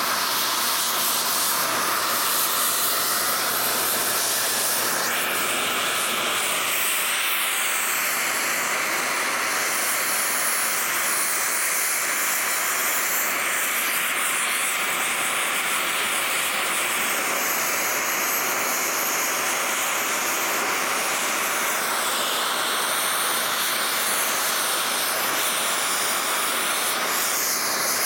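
Oxy-acetylene cutting torch hissing steadily as it cuts through the race of a seized ball bearing on a steel electric motor shaft.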